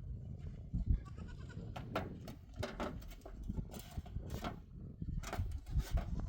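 Farm animals calling several times over a constant low rumble.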